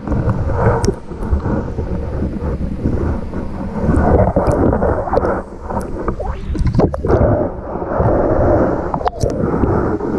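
Water churning around an action camera held underwater, heard through its housing as a muffled, low rumble. Scattered sharp clicks and knocks run through it.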